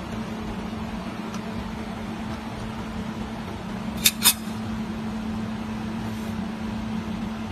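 Fiber laser welding machine running with a steady hum, typical of its cooling fan or chiller. About halfway through, two short sharp sounds come a quarter-second apart and are the loudest thing heard.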